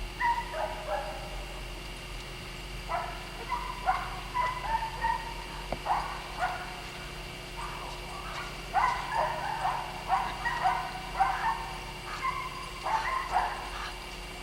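A dog whining and yipping in short, high-pitched cries that come in bouts, busiest in the second half.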